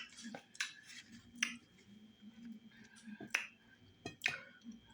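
Close-up wet mouth smacks and clicks of eating fufu with slimy okra stew by hand: about half a dozen sharp, irregularly spaced smacks.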